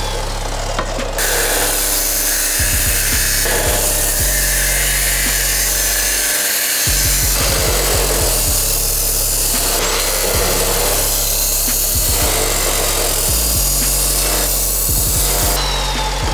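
A power tool working on wood, its noise swelling and easing about every second and a half in the second half, over background music with a steady bass line.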